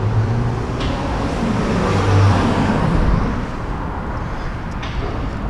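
City street traffic: steady road noise with a motor vehicle's engine hum, louder around two seconds in as a vehicle passes.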